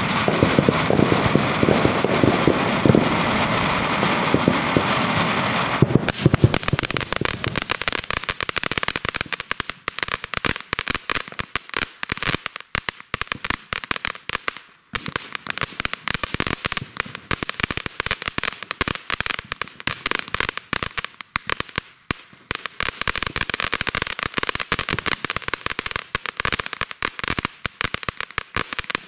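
Consumer firework fountains burning. The first few seconds are a steady hissing rush. About six seconds in, it changes to a dense, rapid crackling of many small pops, which goes on with two brief breaks.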